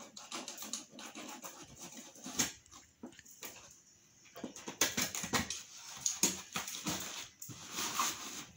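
Utility knife cutting and scraping at a sealed cardboard box: a run of scratchy strokes and small clicks, busier in the second half.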